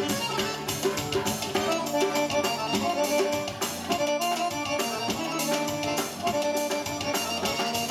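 Live Crimean Tatar folk music: an accordion plays the melody over keyboard backing. A nagara, a large double-headed drum, keeps a steady beat.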